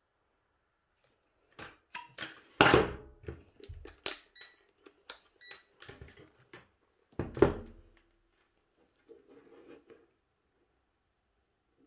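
Hard plastic being handled on a wooden table: a cordless-tool battery pack and its charger knocking and clicking. There are two louder thumps about three and seven seconds in, then a faint rustle.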